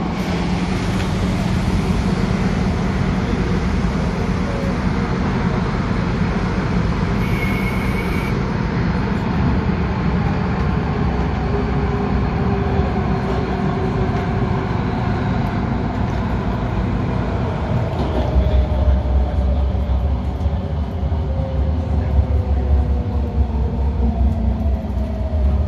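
MTR Tung Chung Line A-Train electric multiple unit running and braking into a station: steady wheel and running rumble, with the traction motor whine falling in pitch as the train slows. A short high beep sounds about seven seconds in.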